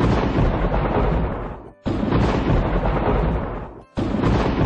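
Thunderclap sound effect for a lightning strike, three loud blasts about two seconds apart, each cutting in suddenly and tailing off.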